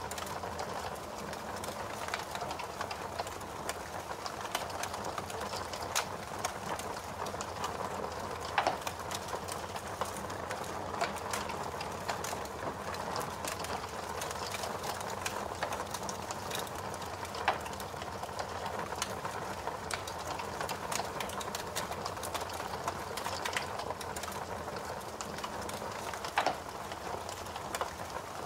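Fire crackling: a steady soft hiss with many small crackles and a few louder pops scattered through.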